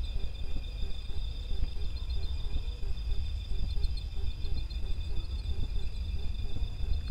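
Night insects such as crickets calling steadily in several high, finely pulsed trills, with a lower note repeating about three times a second beneath them and a constant low rumble.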